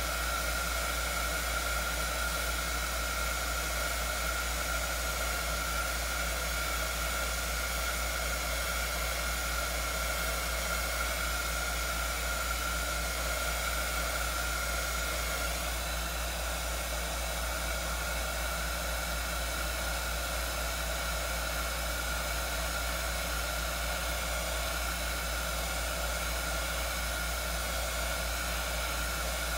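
Small handheld craft heat gun blowing steadily, a continuous rush of air with a high fan whine, as it heats wet epoxy resin to thin and spread the white pigment paste.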